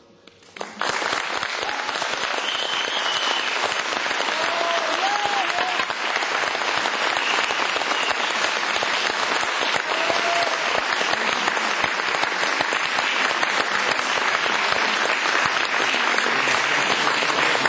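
Audience applause after a live tango performance. It starts abruptly about a second in and keeps going steadily.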